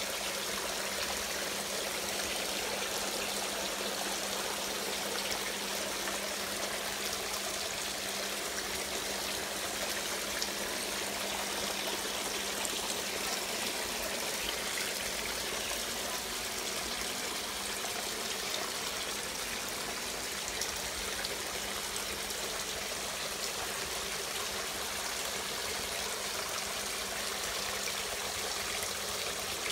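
Water running and trickling steadily while a snail pond is drained and refilled with fresh water, with a steady low hum underneath.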